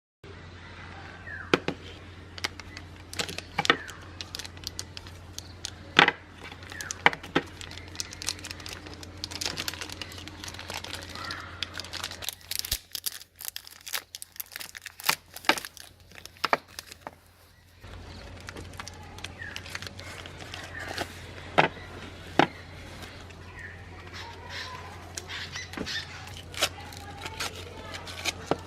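Soap being crushed in a meat grinder: irregular crackling and sharp cracks over a steady low hum. The hum stops for about five seconds near the middle, then starts again.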